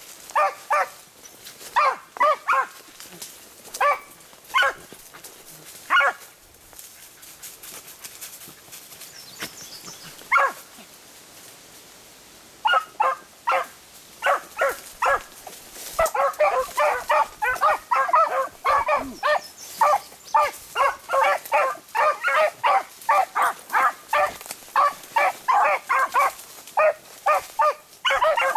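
Beagles baying with short, repeated barks: the hounds giving tongue on a rabbit's scent line. A few spaced barks at first, a lull of several seconds, then fast, almost continuous baying through the second half.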